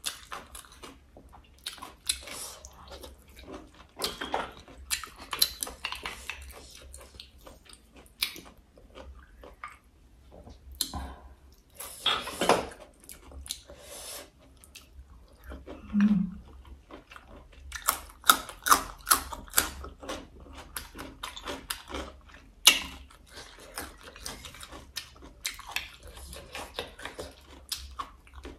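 Close-up eating sounds of boiled snails and braised crab: irregular chewing and biting, with sharp clicks of shells being handled.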